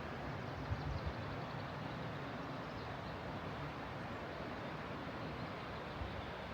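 Steady rushing of a flowing river, with a couple of low bumps about a second in.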